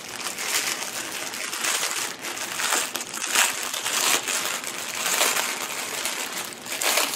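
Plastic packaging crinkling and rustling as a plastic-wrapped bundle of diamond-painting drill bags is handled and opened, irregular with sharper crackles here and there.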